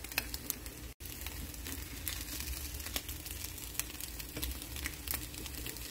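Egg and pastry pancake frying in an oiled pan: a steady sizzle with scattered small crackles, cutting out for an instant about a second in.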